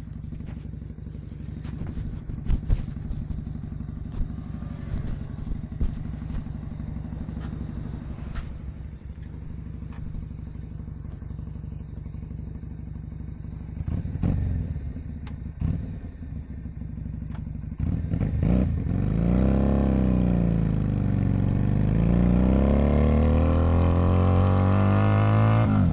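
Keeway SCR 250V motorcycle engine, fitted with a custom shortened exhaust and a half-length baffle, idling steadily with a few sharp clicks over it. It gets a brief rev a little past halfway, then from about two-thirds in is revved up and down repeatedly, louder, the pitch rising and falling.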